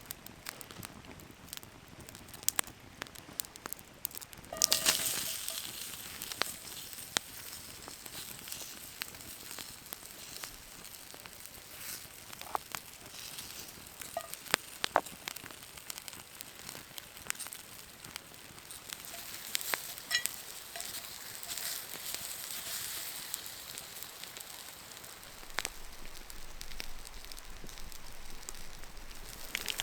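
Campfire crackling and hissing, with scattered sharp pops and a louder burst of hissing about five seconds in.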